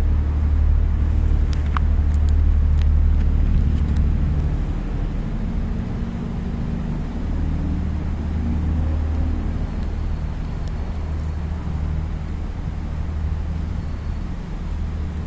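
Steady low rumble of motor traffic, a little louder in the first few seconds, with a few faint clicks early on.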